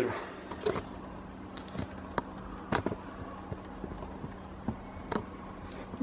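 Quiet room tone with a low steady hum and a handful of faint, scattered clicks and taps.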